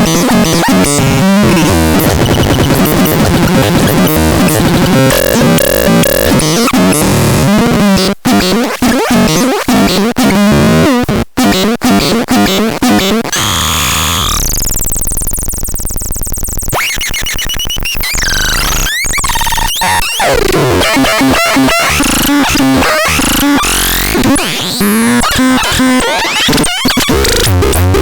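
Harsh, chaotic electronic synthesizer noise from a CBX 6013E sound demo: dense glitchy tones and noise, two brief dropouts, and a stretch of high gliding tones about halfway through.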